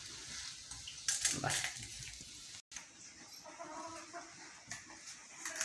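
Metal tongs scraping and clicking against a small wok while stirring noodles, with a few sharp strikes about a second in. After a break, faint voice-like sounds follow.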